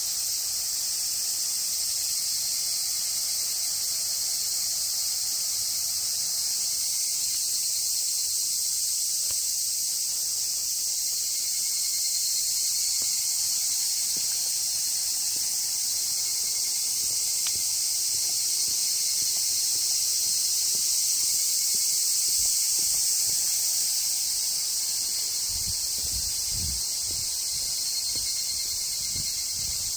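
A steady, high-pitched chorus of summer insects, unbroken throughout, with a few low thumps near the end.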